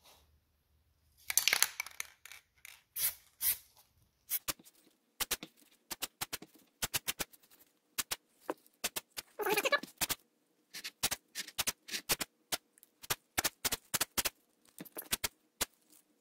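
Aerosol spray-paint can hissing in many short spurts, with two longer sprays about a second and a half in and near the ten-second mark.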